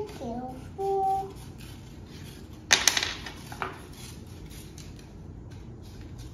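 Children's plastic-handled scissors snipping construction paper: faint scattered snips, with a cluster of sharp clicks about three seconds in.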